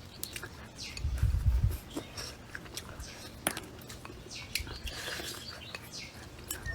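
Close-up eating sounds: chewing and crunching on pork ribs, with many sharp clicks and a low bump about a second in. Birds chirp faintly in the background.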